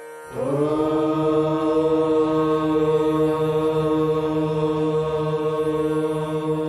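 Voices chanting a prayer on one long held note. It starts about a third of a second in with a brief rise in pitch, then holds steady.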